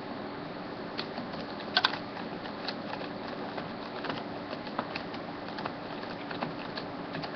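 Light clicks and taps of a laptop's plastic parts and screws being handled during disassembly, irregular, with a sharper double click about two seconds in, over a steady background hiss.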